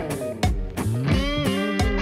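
Background music: electric guitar with bending notes over a steady drum beat.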